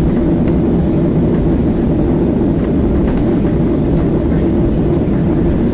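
Steady low rumble in the cabin of a Boeing 737-700 as it taxis, from its CFM56 engines at taxi power and the rolling landing gear.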